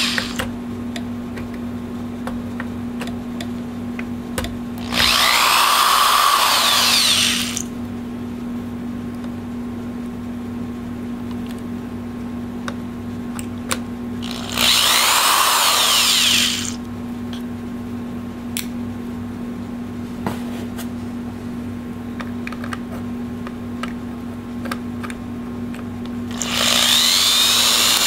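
Cordless drill-driver turning the screws in the base of a Lenovo W520 laptop. It runs in three short bursts of two to three seconds each, and its motor pitch sweeps up and down within each burst. Between bursts there is a steady low hum and a few small clicks of handling.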